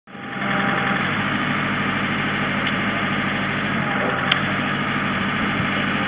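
Backhoe engine idling steadily, with one sharp click about four and a half seconds in.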